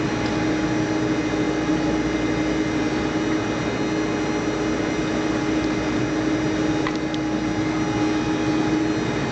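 Maytag WU882 dishwasher running, a loud, steady machine drone with a constant hum.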